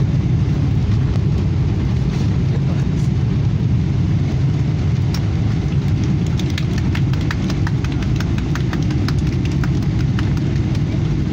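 Steady low rumble inside an airliner cabin as the jet rolls and taxis on the ground after landing: engine and tyre noise carried through the fuselage. A scatter of light clicks and rattles runs through the second half.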